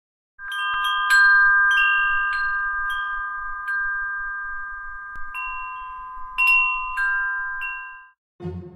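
Chimes ringing: a run of bright struck notes over a held, shimmering chord that slowly fades out about eight seconds in. Music starts just before the end.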